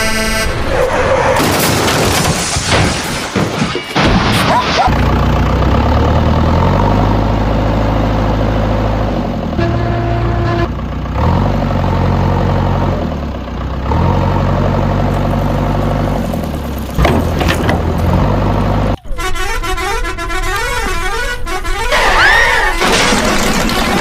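Vehicle horn honking over steady engine-like drones, with a shift about nineteen seconds in to a warbling electronic sound.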